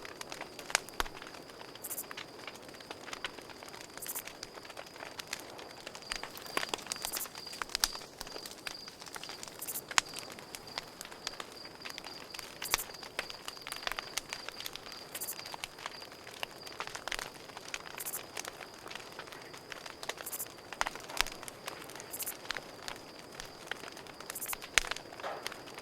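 Campfire crackling, with irregular sharp pops and snaps, over a steady high chirping of crickets.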